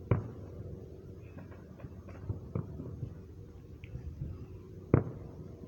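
Distant fireworks going off: two sharp bangs, one just after the start and a louder one about five seconds in, with fainter pops between, over a low steady background hum.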